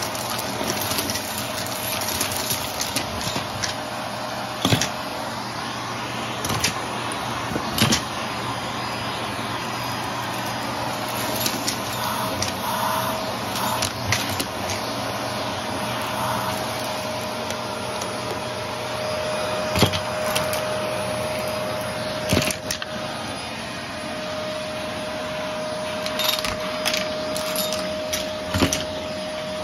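Shark vacuum cleaner running steadily over carpet with its brushroll, a steady whine over the motor noise. Small beads and debris crunch and click sharply at scattered moments as they are sucked up.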